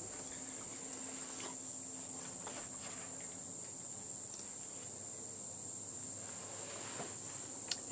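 Steady, high-pitched insect chorus of crickets or similar insects, an unbroken shrill drone, with a few faint clicks.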